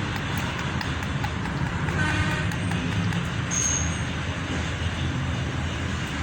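Steady background road-traffic rumble, a low drone with a haze of noise above it and no distinct events.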